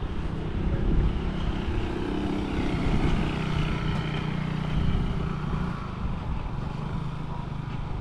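A motorbike engine running as it passes, a steady hum that fades away near the end.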